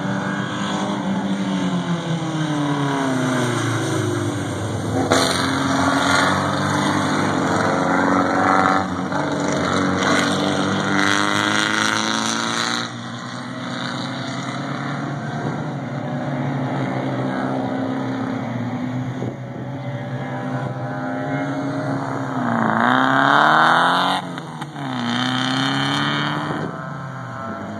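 Race car engines at high revs passing one after another on a wet track, the pitch dropping as each car goes by and climbing again with gear changes. The loudest, closest pass comes about 23 seconds in.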